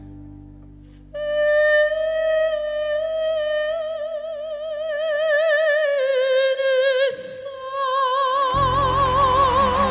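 A woman singing long held notes with wide vibrato in an operatic style, over soft sustained backing music. The first note comes in strongly about a second in, she steps down to a lower note around the middle, and a full low accompaniment swells in near the end.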